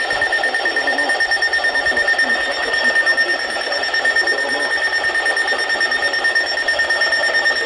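Weather radio broadcast audio: a steady high-pitched tone over rough, crackly static, with no clear speech.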